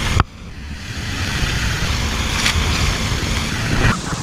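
Steady rushing noise of wind and water on the microphone. It drops away sharply just after the start and builds back up.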